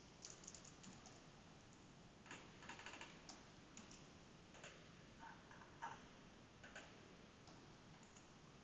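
Faint, scattered clicks of typing on a computer keyboard.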